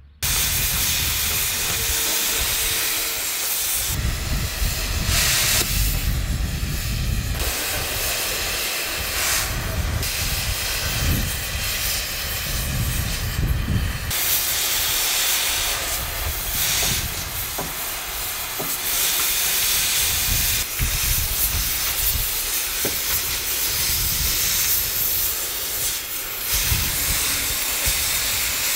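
Gas cutting torches hissing steadily as scrap cutters cut up a steam locomotive's steelwork, with an irregular low rumble underneath.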